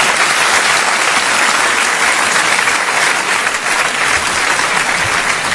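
Theatre audience applauding at the close of a stand-up comedy routine, a dense steady clapping that swells in just before and holds level throughout.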